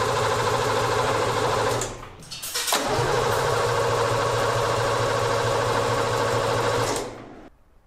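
Nissan Patrol's 3.3-litre naturally aspirated six-cylinder diesel being cranked by its starter motor in two stretches of a few seconds with a short pause between. Both attempts cut off without the engine catching and running on.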